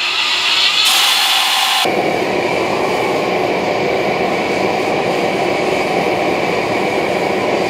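A belt grinder grinding a steel knife blank for about two seconds. Then a gas forge's burner runs with a steady, even rushing noise.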